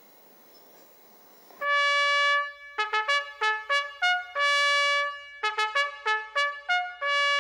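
A trumpet plays a military-style signal call on a few notes, mixing long held notes with quick short ones. It starts about a second and a half in, after a near-silent pause.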